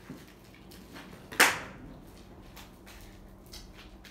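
A single sharp snap or knock about a second and a half in, with a short fading tail, among a few lighter clicks and taps of handling.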